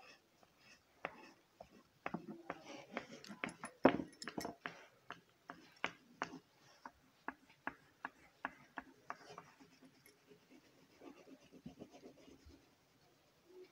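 DOMS oil pastel scratching and tapping on paper in short colouring strokes, a fast uneven run of small scratchy ticks. They are busiest in the first half and thin out after about ten seconds.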